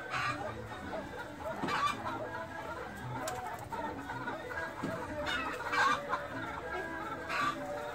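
Pheasants calling: four short calls, spaced a second or more apart, over steady background bird noise.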